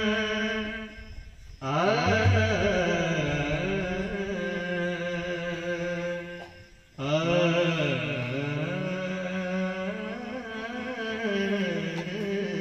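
Devotional bhajan singing: a voice sings long, sliding, held phrases, pausing briefly twice, with a deep pakhawaj stroke about two seconds in.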